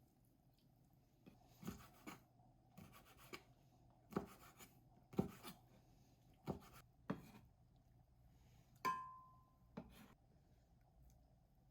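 Scattered knocks and taps of things being handled in a kitchen, about ten in all, with one ringing clink of glass or metal about nine seconds in.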